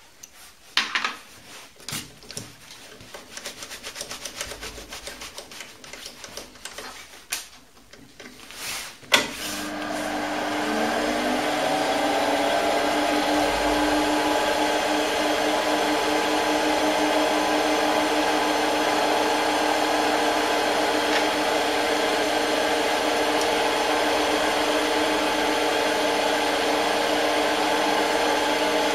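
Scattered clicks and knocks from hands adjusting the tooling. About nine seconds in comes a sharp click, and the Optimum D180 Vario lathe's spindle motor whines up to speed over a second or two, then runs with a steady hum.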